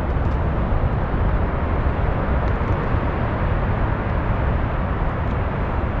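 Wind buffeting a GoPro's microphone on an exposed clifftop: a steady, rough low rumble that flutters in level.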